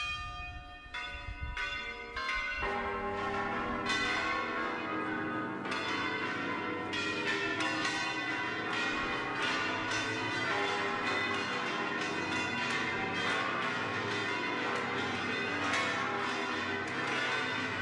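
Tower bells rung by one player. A few single strikes come first, then from about two and a half seconds in many bells are struck in quick succession, overlapping into a dense, continuous clangour.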